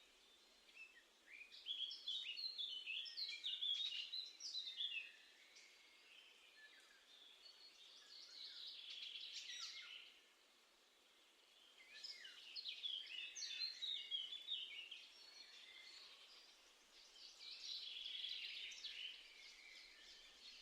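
Garden songbirds singing: four phrases of quick, high chirping notes and trills, each a couple of seconds long, with short pauses between them.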